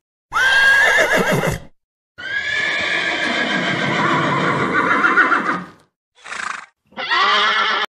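Horse whinnying in a series of calls: a high, wavering neigh of just over a second, then a longer one of about three and a half seconds, a short breathy burst, and a last short neigh near the end.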